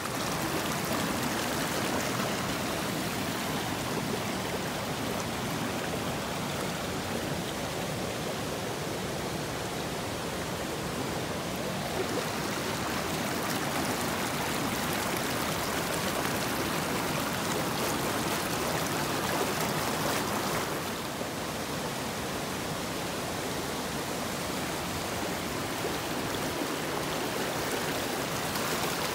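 Mountain stream rushing over rocks: a steady, even rush of water that shifts slightly in tone about 12 and 21 seconds in.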